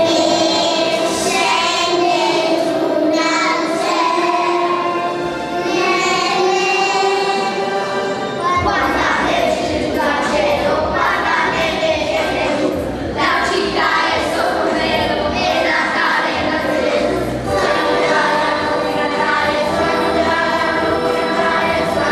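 A choir of young children singing a song together. About nine seconds in, deeper backing sound joins the voices.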